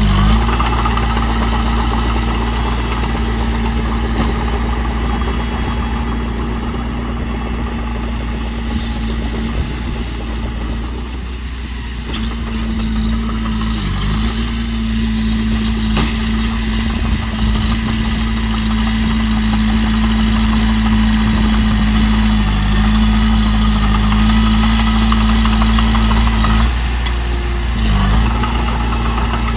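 Heavy diesel engine of a dump truck or bulldozer running steadily, its pitch dipping briefly near the start, about halfway through and near the end.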